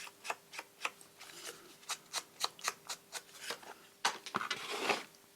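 Inking along the edges of a paper envelope flap: a rapid series of short scratchy strokes on paper, about four to five a second, then a longer rustle of paper handling about four seconds in.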